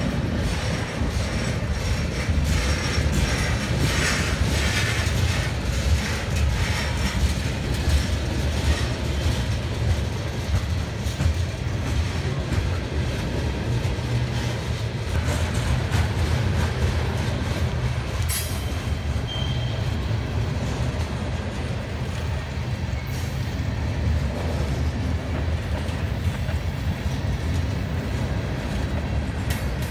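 CSX manifest freight train's cars, covered hoppers and a tank car, rolling past with a steady low rumble and wheels clacking over the rail joints.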